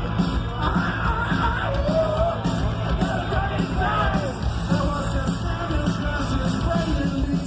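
Rock band playing loudly, with a sung vocal line over a dense, steady wall of drums and guitars.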